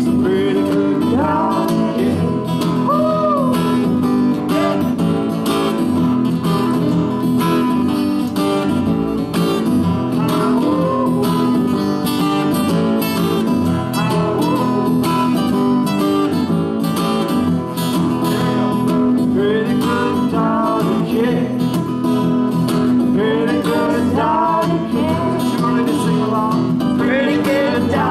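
Several acoustic guitars playing an instrumental passage of a folk-country song together, strummed chords under a picked lead line.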